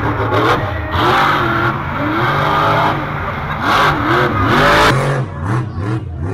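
Monster truck engines revving loudly, their pitch rising and falling over a steady low drone. The sound drops off suddenly about five seconds in.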